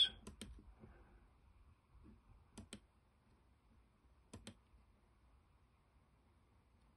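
Faint clicks from computer input while coordinates are entered: three quick double clicks about two seconds apart, over quiet room tone.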